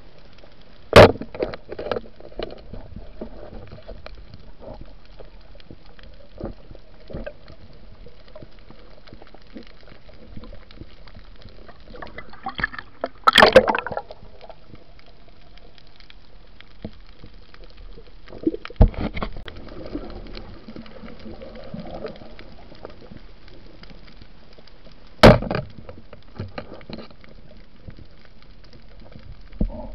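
Underwater sound picked up by a diver's camera: a steady low hiss of the water, broken every several seconds by sharp knocks. A louder cluster of knocks and rattling comes around the middle.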